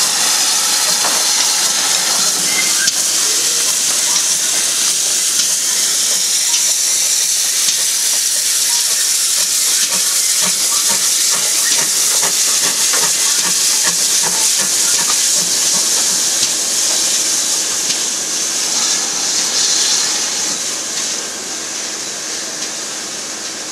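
Steam locomotive letting off steam: a loud, steady hiss that eases off about 20 seconds in.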